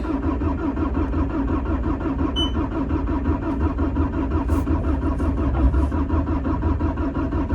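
Bobcat T650 skid steer's diesel engine being cranked by the starter with a fast, even chug that does not catch, because air is still in the fuel line after the fuel filter change.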